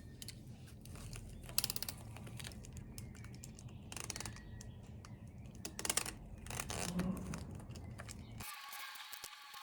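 Scattered clicks and rustles of small objects being handled, over a low steady room hum. Music cuts in near the end.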